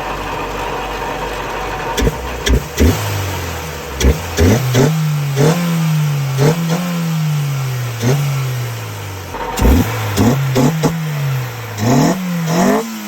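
Honda B18C1 four-cylinder engine of an Integra GSR, breathing through an aftermarket air filter, revved in a series of quick throttle blips: each rise in revs is sharp and the fall back is slower, about eight times over, with sharp snaps of intake noise at many of the blips.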